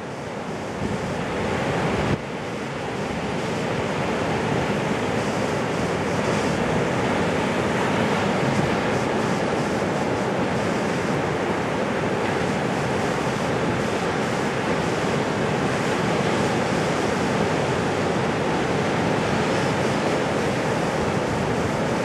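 Small, ankle- to knee-high ocean surf breaking and washing up the beach: a steady rush of surf that swells over the first few seconds, with wind buffeting the microphone.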